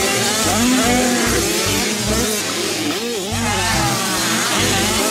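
Several motocross dirt bike engines revving and accelerating over one another, their pitch rising and falling again and again.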